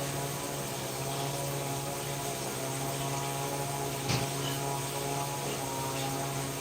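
A steady electrical or motor hum, like a small appliance running, with a single short click about four seconds in.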